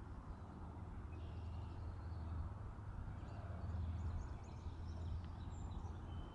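A steady low rumble of outdoor background noise with faint, short bird chirps high above it.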